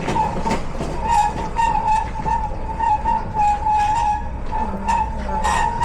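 Hardware-store flatbed cart loaded with heavy concrete bags rolling over a concrete floor: wheels rumbling and clacking irregularly, under a steady, slightly wavering whine.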